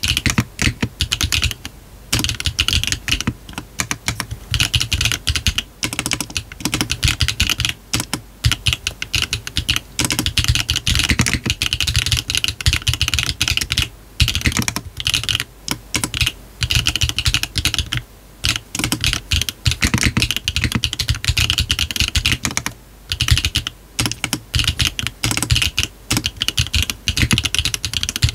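Continuous fast typing on a GDK DK1-TKL custom mechanical keyboard with brass bottom case, Yogurt switches, 1.6 mm PCB, no foam and hard bean gasket mount, under PBT cherry-profile keycaps: dense rapid keystroke clacks broken by brief pauses now and then.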